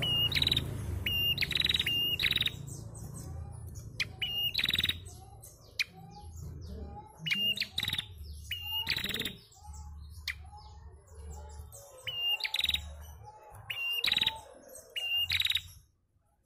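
Female prenjak calling: bursts of sharp chirps, each a brief high whistle snapping into a buzzy trill, with pauses between the bursts. Softer, lower chirps sound between the bursts, over a low rumble.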